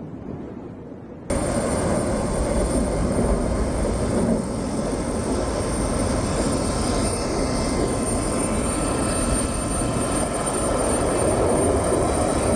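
Steady drone of aircraft engines, cutting in abruptly about a second in after a short stretch of fainter wind noise.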